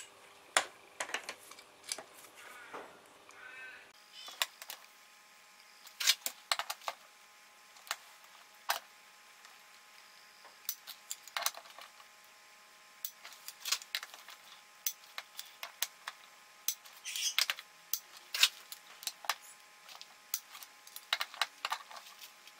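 Torque wrench and socket working the transfer-case bolts up to 26 newton metres: irregular sharp metallic clicks and taps, some in quick clusters.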